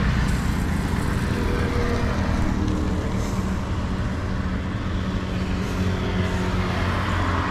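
A motor engine running steadily with a low, even rumble.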